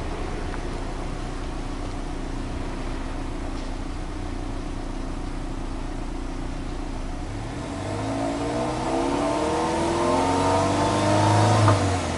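Subaru Legacy B4 2.0GT spec.B's turbocharged EJ20 flat-four engine, heard at its twin exhaust tips. It idles steadily, then about seven and a half seconds in it is revved in neutral, the revs climbing over about four seconds before the throttle is released near the end.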